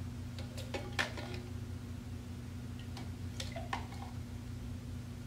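A metal ladle clinking lightly against the mixing bowl and a plastic pitcher as soap batter is scooped and poured. There are a handful of light clicks about a second in and again a few seconds later, over a steady low hum.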